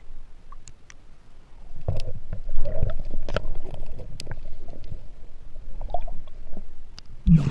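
Muffled underwater noise from a camera held below a river's surface: low rumbling water movement with scattered sharp clicks and knocks. It grows busier and louder about two seconds in, and there is a heavy low thump near the end.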